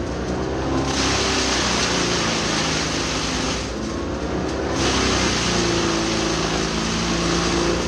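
Tractor-driven Badger 8 PTOXL PTO wood chipper running while chipping eucalyptus: a steady engine drone under a loud rushing chipping noise. The rushing noise eases off during the first second and again for about a second midway, then comes back.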